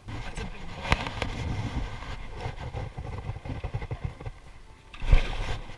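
Knocking and rustling handling noise in a small aluminum boat, with a sharp knock about a second in and a heavy thump near the end.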